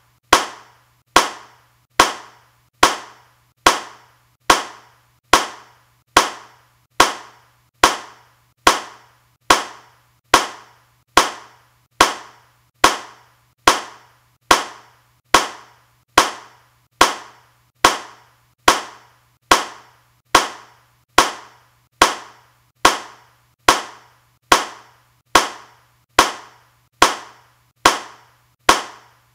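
Single hand claps repeated at an even pace, a little more than one a second, each a sharp crack with a short fading tail.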